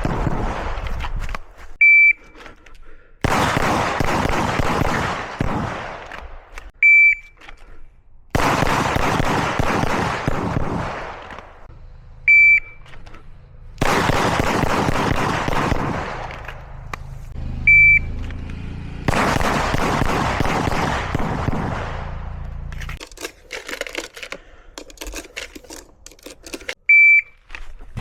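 Shot timer beeping five times, each beep followed about a second later by a rapid string of 9 mm pistol shots from a Glock 34 that run together for three or four seconds.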